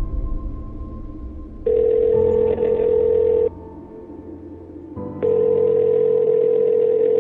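Sustained ambient music with a telephone ringing tone laid over it, as a caller hears it down the line: a steady tone sounding twice for about two seconds each, with a pause of under two seconds between, each cutting off abruptly.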